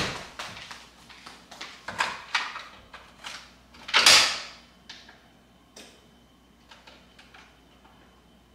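Kitchen handling sounds: a drawer knocking shut, then several clicks and knocks of things being handled on the countertop, with a short loud rush of noise about four seconds in. After that it settles to a few faint ticks.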